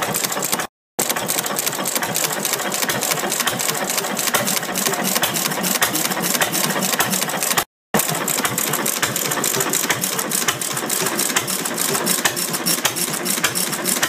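Antique Massey-Harris kerosene stationary engine running, with a rapid, even clatter of firing and valve gear. It is not a hit-and-miss engine, so it fires steadily with no coasting gaps. The sound drops out twice for a split second, near the start and about halfway.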